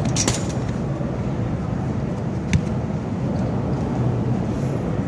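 Steady rumble of road traffic, with a sharp knock about two and a half seconds in.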